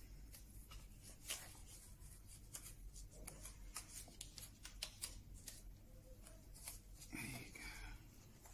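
Faint handling sounds of thin wooden strips being placed by hand and pushed into a jig: light taps, small clicks and rubbing of wood on wood, scattered throughout.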